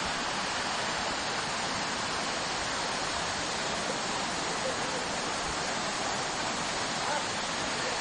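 Waterfall: falling water rushing with a steady, even noise.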